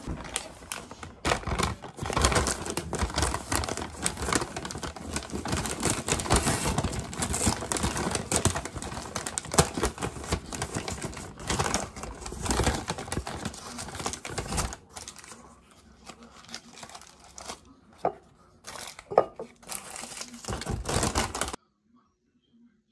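Brown paper bag crinkling and rustling as it is handled and opened. The rustling is dense for about the first fifteen seconds, then thins to a few separate rustles and taps, and cuts off suddenly near the end.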